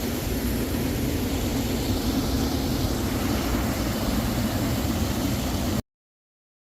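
Small mountain-stream waterfall pouring into a rocky valley pool, a steady rushing noise that cuts off suddenly near the end.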